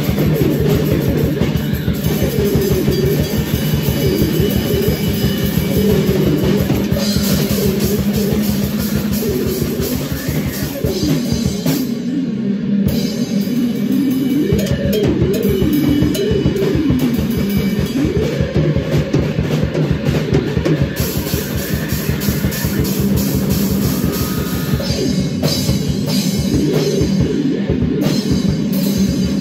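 Loud improvised noise-rock jam on a drum kit and an electric bass guitar, recorded on a single phone microphone. The drums are played fast and dense while the bass slides and wavers up and down in pitch.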